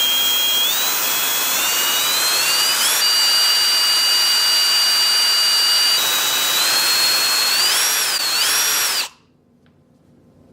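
Electric drill boring into an iPhone 7, its high whine stepping up in pitch a few times and wavering near the end, then stopping suddenly about nine seconds in.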